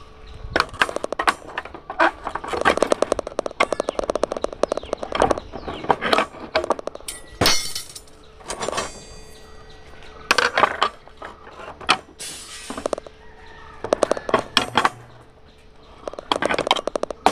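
Steel reinforcing bars clinking and scraping against each other and against the steel pins of a bending jig as they are handled and bent into stirrups with a hand bending bar. The sound comes as repeated quick runs of metallic clicks and clinks, with short quieter pauses between them.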